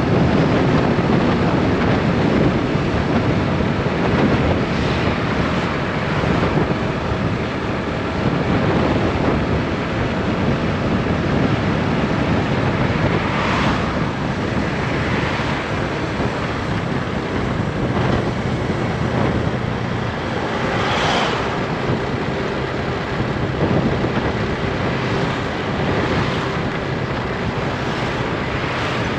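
Wind rushing over the microphone during a motorbike ride, with the bike's engine running underneath. There are two brief louder swells, about halfway and two-thirds of the way through.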